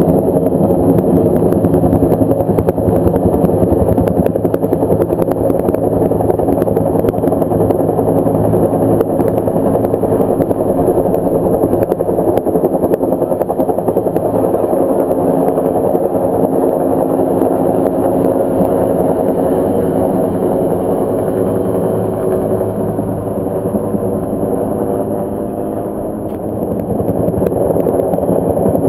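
Helicopter hovering close overhead on a long line, its rotor and turbine running steadily. It eases off a little for a few seconds near the end, then comes back up to full strength.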